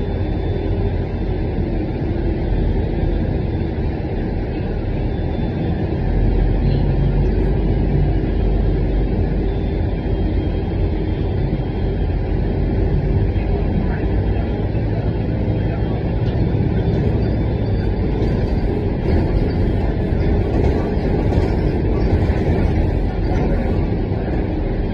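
City bus engine and road noise heard from inside the passenger cabin: a steady low rumble that grows louder about six seconds in, with light clicks and rattles near the end.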